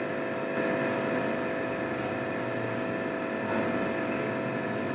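A steady mechanical hum with several steady tones, unchanging throughout.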